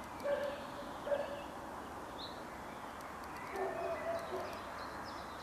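Steady background noise of a large indoor hall, with a few faint short calls over it, one near the start, one about a second in and a cluster a little past halfway.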